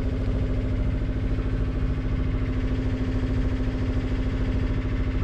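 The sailboat's Yanmar inboard diesel running steadily in forward gear, driving the boat ahead: a steady hum over a fast, even low beat.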